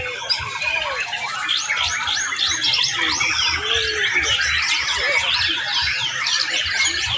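Many white-rumped shamas singing at once in a songbird competition: a dense, unbroken chorus of fast overlapping whistles and chirps, with a few lower gliding notes beneath.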